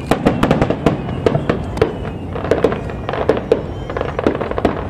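Aerial fireworks bursting overhead: a rapid, uneven run of sharp pops and bangs with crackling.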